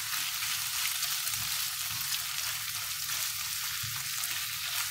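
Diced chicken, peppers and tomato paste sizzling in olive oil in a frying pan, a steady hiss as they are stirred with a silicone spatula.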